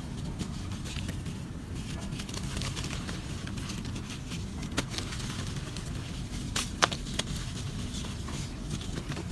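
Dry clumps of black charcoal sand being crumbled: scattered small crackles and ticks over a steady low rumble, with a couple of sharper cracks about two thirds of the way through.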